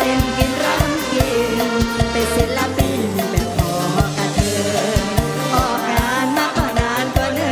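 Live mor lam band music with a woman singing over a steady, fast drum beat.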